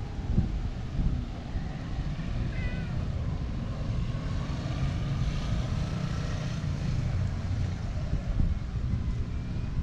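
Steady low outdoor rumble of wind and distant traffic, with a short faint cat meow about two and a half seconds in.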